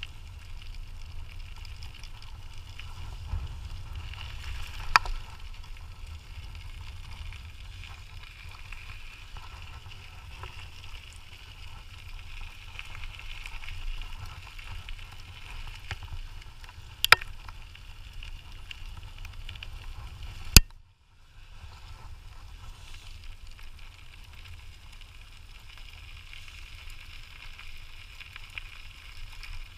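Dog scooter rolling along a trail, its tyres giving a steady low rumble with a faint hiss, broken by three sharp knocks, the loudest about two-thirds of the way through.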